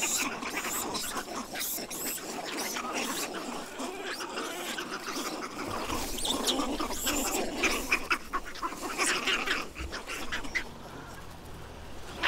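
Vervet monkeys calling during a troop fight: many short, sharp cries overlapping. They thin out and fade about ten seconds in.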